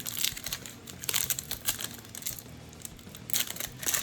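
Plastic wrapper of a Panini Prizm trading-card pack crinkling and tearing as it is opened, in several short bursts.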